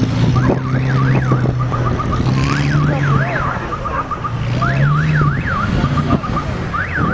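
Car alarm sounding, cycling between quick rising-and-falling sweeps and runs of rapid beeps, several times over. Underneath, a car engine runs steadily, rising in pitch briefly about five seconds in as the car drifts on the snow.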